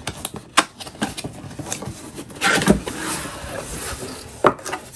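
Cardboard box being opened by hand: a sharp snap as the tucked flap comes free, then cardboard scraping and rubbing as the lid is lifted open, and another sharp knock near the end.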